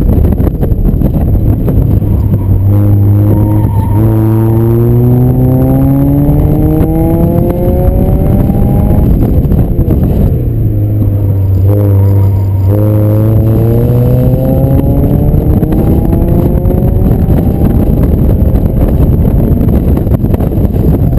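Mazda MX-5 Miata's four-cylinder engine heard from inside the cabin, revving up under hard acceleration. It climbs in pitch twice, with a drop between the two climbs about ten seconds in, then settles into a steady rush of engine and road noise near the end.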